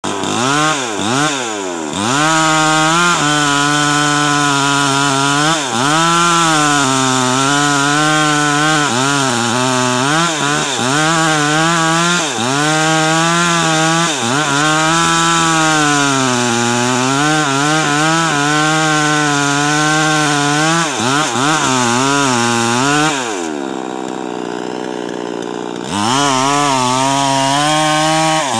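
Two-stroke chainsaw with a 22-inch bar cutting into a mahogany trunk. A few quick revs come first, then the engine runs at full throttle, its pitch sagging and recovering as the chain loads in the wood. Near the end it drops to idle for a couple of seconds, then revs back up.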